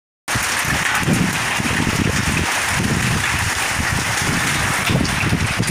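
Heavy rain with hail falling, a steady loud hiss that cuts in abruptly a moment in, with an uneven low rumble underneath.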